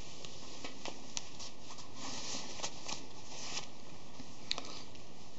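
Fabric rustling and sliding as a necktie knot is cinched up to the shirt collar and the collar is adjusted by hand, in clusters of short rustles over a steady hiss. Two small sharp clicks, one about a second in and another near the end.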